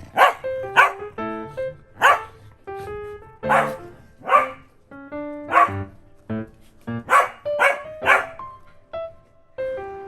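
Welsh corgi barking about nine times at irregular intervals, over background music with plucked notes.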